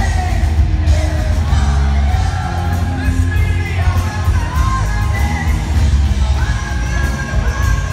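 Live progressive metal band playing full out, with distorted electric guitars, bass and drums under a high male singing voice. The sound is heard from the crowd, with a heavy, booming low end.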